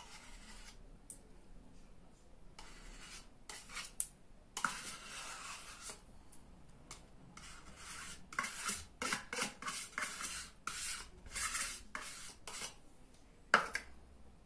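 Metal spoon scraping sour cream out of a tub into a pot, in a run of short scrapes and rubs, with one sharp clink near the end.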